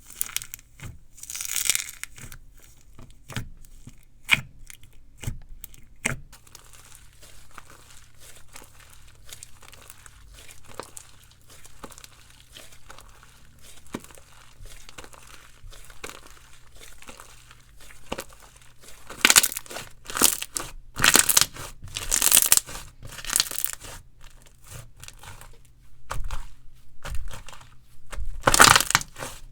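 Hands kneading and stretching slime: scattered small clicks and pops, with louder crackling, squishing bursts about two-thirds of the way in and again near the end.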